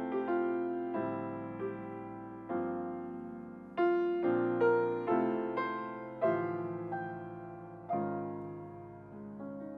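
Grand piano played solo in a slow jazz style: chords struck a second or two apart and left to ring out, growing quieter near the end.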